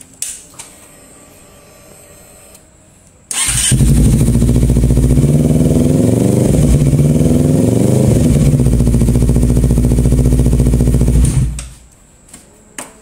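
Honda CBR250RR motorcycle engine started through a Proliner TR1-R long titanium exhaust, catching suddenly about three seconds in. It runs loud and steady for about eight seconds, the revs rising a little in the middle and settling, then it is switched off and dies away. Its note is mellow and bassy for an aftermarket pipe.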